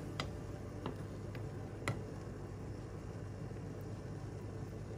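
A few short, light clicks of a plastic ladle against a stainless steel pot while the broth of a simmering whole chicken is skimmed, over a steady low hum.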